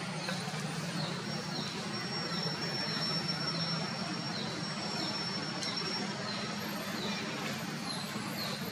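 Outdoor background ambience: a steady low hum, with a short, high, falling chirp repeating roughly three times every two seconds and a thin, steady, high whine starting about a second in and stopping near the end.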